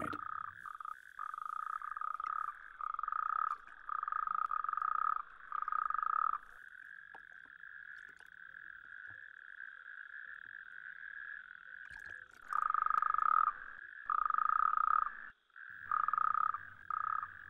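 Male toads calling: a steady background chorus, with a nearer toad's louder calls in short bursts of under a second each. A run of these bursts comes first, then a pause of about six seconds, then more. These are males' advertisement calls to attract females, made through an inflated throat sac.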